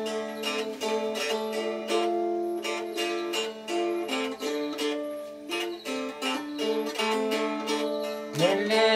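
Music on a plucked string instrument: quick picked notes over a steadily held low note.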